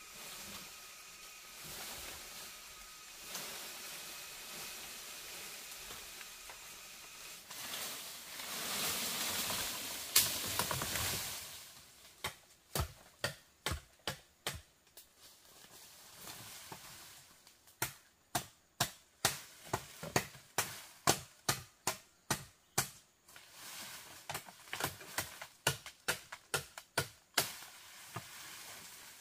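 Rustling and scraping that swells for a few seconds, then a long run of sharp taps or knocks, first about two a second, then faster and more irregular.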